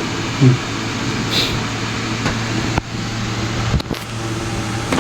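Steady mechanical hum, with a short thump about half a second in and a couple of sharp clicks near the end.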